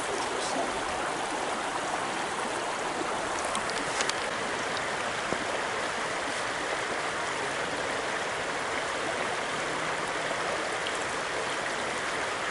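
River water rushing steadily, an even, unbroken flow.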